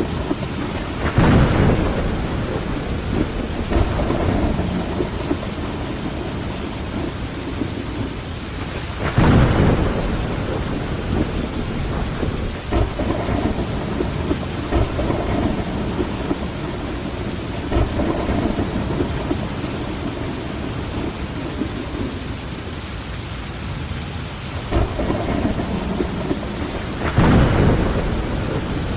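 Steady rain falling against window glass, with thunder rumbling through it. Three louder swells of thunder come shortly after the start, about a third of the way in, and near the end.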